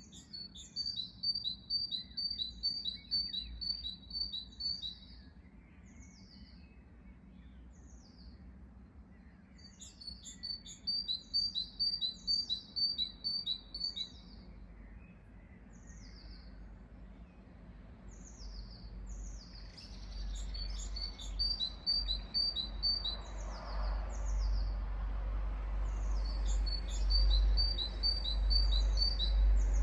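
Songbirds singing. One bird repeats a rapid, high trill of evenly spaced notes, four times, each phrase lasting a few seconds, and other birds give short downward-slurred chirps in between. A low rumble grows in the background from about two-thirds of the way through.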